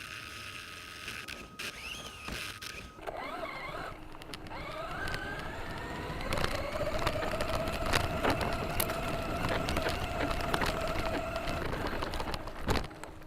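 A motor whine that rises in pitch about three seconds in, then holds a steady pitch for several seconds before stopping near the end, with scattered clicks and rattles over it.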